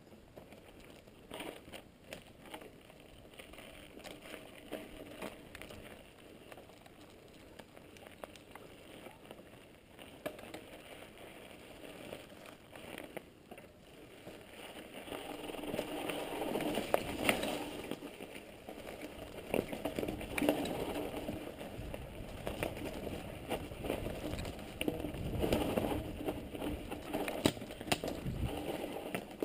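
Mountain bike riding over a rough dirt forest trail: tyres on dirt and gravel with the bike rattling, and many short clicks and knocks over the bumps. It gets louder and rougher from about halfway through.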